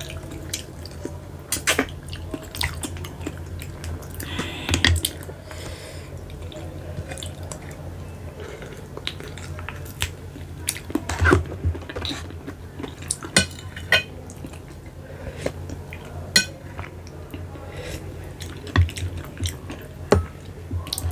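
Close-up eating sounds of sea snails being eaten by hand: sucking the meat from the shells and chewing, with scattered sharp clicks as shells knock against the glass bowl. A steady low hum runs underneath.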